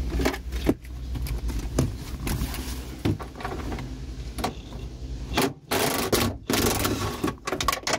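Socket tool working a nut off a car's convertible-top tack strip bracket: fast clicking and metal scraping, densest over the last two seconds, with a few sharp knocks before it.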